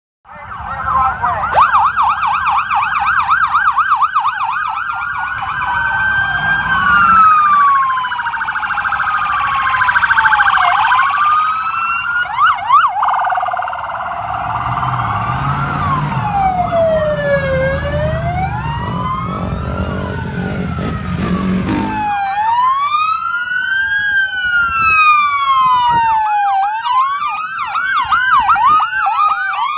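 Several American police car sirens sounding at once, overlapping and switching between a fast yelp and a slow rising-and-falling wail. A low rumble runs beneath them and stops about two-thirds of the way through.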